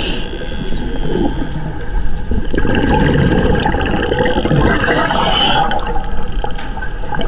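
Bottlenose dolphins whistling underwater: several short high whistles that dip and rise in pitch. Underneath is a steady rumble of water and bubble noise, with a short hissing burst about five seconds in.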